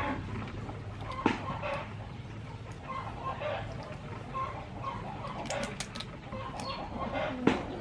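Chickens clucking in short bursts, with sharp cracks and clicks as a raw mud crab's shell and legs are pulled apart by hand on a wooden chopping board; the loudest cracks come about a second in and near the end.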